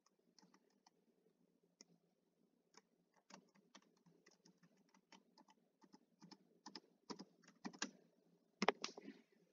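Computer keyboard being typed on, faint: a run of short key clicks, sparse at first, then quicker and louder from about three seconds in, with one harder click near the end.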